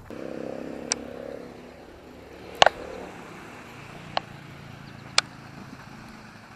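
A steady low engine hum that drops in pitch about two seconds in, with four short sharp clicks over it, the loudest about two and a half seconds in.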